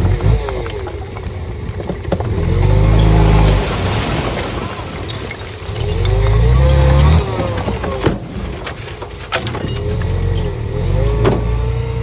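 Heavy diesel engine of a bulldozer working, revving up under load twice for about a second each time. Squealing from the running gear and a few metallic clanks come through between the revs.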